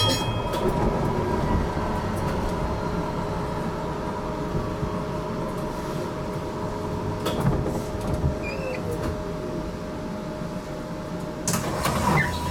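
GTL8 tram running along its track with a steady hum and whine, one tone sliding down in pitch around the middle as it slows for a stop. Scattered clicks and rattles, with a burst of knocks and clatter about a second before the end.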